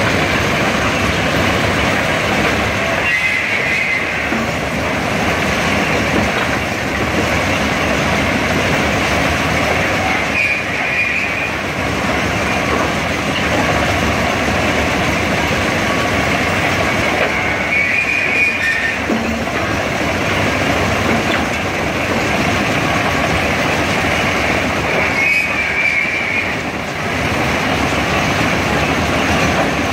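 SUZ 500 track-renewal train working steadily at close range, a dense continuous mechanical rumble. A brief high squeal cuts through four times, about seven and a half seconds apart.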